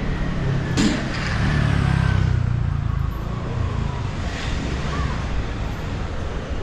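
Street traffic noise: a low vehicle rumble swells over the first three seconds and eases off, with a faint falling whine as a vehicle goes by. There is a sharp click about a second in.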